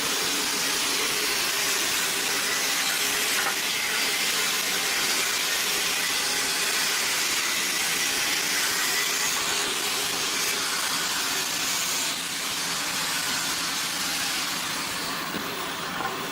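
A woodworking power tool running steadily, a dense even hiss with a faint hum under it that eases slightly about twelve seconds in.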